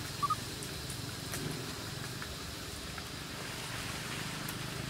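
Steady low rumble of a motor vehicle engine running, with a short two-note high chirp about a quarter second in.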